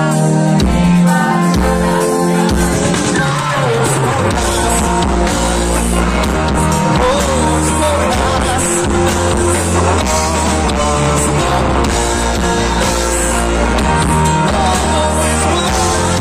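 Live pop-rock band playing loud through a PA, with drums, bass, electric guitar and keyboards under a lead melody line. The bass and drums come in fully about four seconds in.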